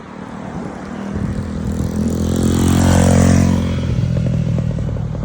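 A heavy truck driving past, its engine growing louder for a couple of seconds and then dropping in pitch as it passes close by. No horn is sounded.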